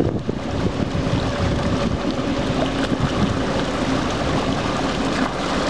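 Sea-Doo jet ski's engine running steadily while towing a small boat, a low hum over the rush of water and wind on the microphone.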